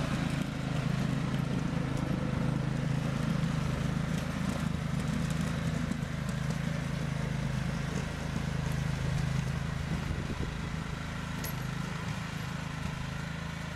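LT2000 riding lawn tractor's engine running steadily under load while it pushes snow with a front blade, growing a little fainter in the last few seconds.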